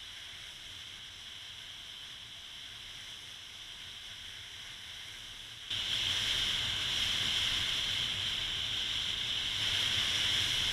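Steady wind and road noise of a Honda SH150 scooter ride picked up by a helmet-mounted camera, with tyres hissing on wet pavement. It steps up suddenly to a louder hiss about six seconds in.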